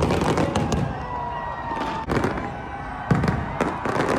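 New Year fireworks display: a string of firework bangs with dense crackling between them, the strongest bursts just after the start, about two seconds in and about three seconds in.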